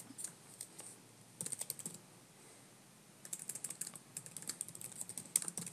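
Faint typing on a computer keyboard: a short burst of keystrokes about one and a half seconds in, a pause, then a quick, steady run of keystrokes over the last two and a half seconds.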